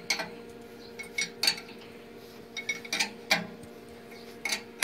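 Metal tools clinking and tapping against steel pipe fittings at the base of a boiler feed pump as a pipe joint is fitted by hand: about half a dozen separate sharp clinks over a steady low hum.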